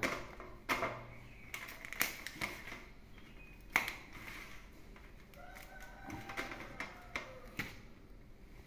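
Quiet handling sounds of a bánh chưng being wrapped by hand: dong leaves crinkling and bamboo ties being pulled, with scattered light taps and clicks against a metal tray. The sharpest click comes about four seconds in.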